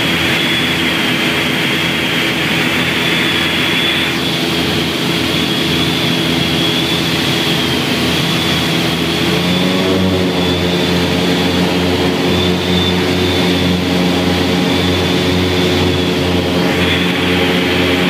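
Cabin drone of a light twin-engine piston aircraft's engines and propellers, heard through the cockpit. About halfway through, the drone rises in pitch and grows louder as power is added for a go-around from the instrument approach.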